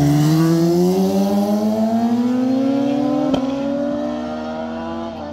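Sport motorcycle engine accelerating hard out of a hairpin bend, its pitch rising steadily as it passes and draws away. A short click a little over three seconds in, after which the engine carries on rising more gently and fades.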